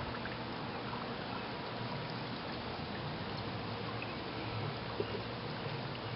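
Steady background hiss, with a small click about five seconds in.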